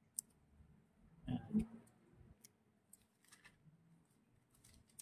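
Faint clicks and light ticks from hands handling a small thin-paper Bible, with one short soft thump about a second and a half in.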